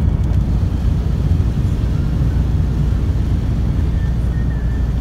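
Steady low rumble of a moving vehicle, engine and road noise heard from inside the vehicle as it drives along.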